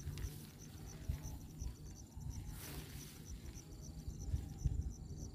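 An insect chirping in a fast, even pulse of about five beats a second, over a low rumble with irregular thumps. About two and a half seconds in comes a brief rustle of the plastic tarp tent being unfolded.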